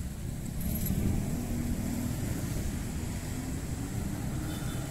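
Steady low rumble of road traffic from the engines of passing cars and motorcycles.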